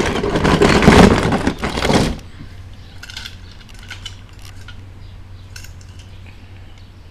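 Die-cast and plastic toy cars clattering and clinking against each other as a hand rummages through a box of them. The clatter is loudest for about the first two seconds, then only a few light clicks follow.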